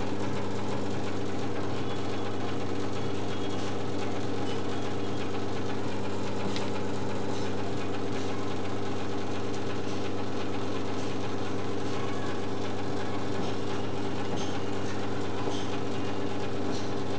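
A steady low hum, like a motor or electrical hum, holds unchanged throughout, with a few faint light clicks now and then.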